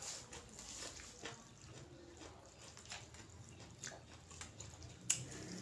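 Quiet eating sounds: a metal spoon scraping and clicking against a bowl of rice noodles, with chewing. The clicks are faint and spaced a second or so apart, with a sharper one about five seconds in.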